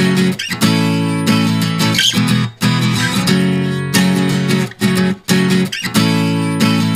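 Background music led by a strummed acoustic guitar, playing a repeating chord pattern.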